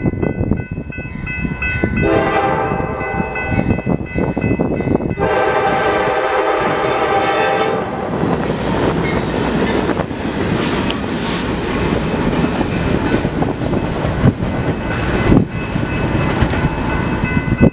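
Two freight locomotives running light: a horn sounds a short blast and then a longer one, followed by the locomotives rumbling past with knocks from the wheels on the rails.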